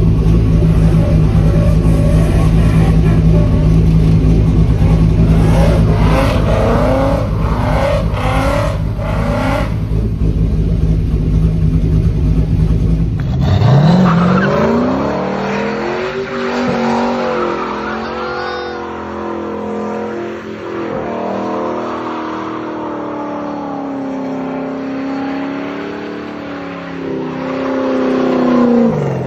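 Hot rod car engine running loudly at a steady idle, with a few short rises in revs. Then a car engine revs up sharply and is held at high revs, its pitch wavering, before dropping off near the end.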